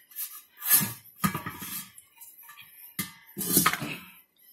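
A few separate knocks and clanks of a metal tank being handled, about four in all, the later ones followed by brief metallic ringing.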